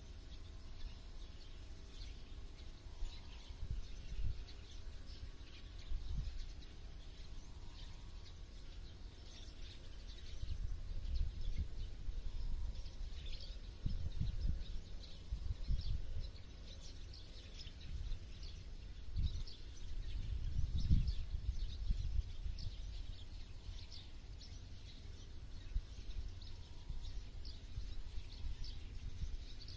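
Small birds chirping over and over in short, high calls, with a low, uneven rumble that swells and fades several times underneath.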